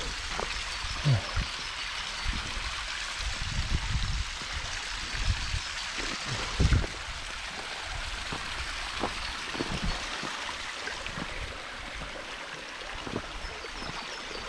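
Steady rushing of a mountain stream, with scattered low thuds; the loudest thuds come about a second in and near seven seconds.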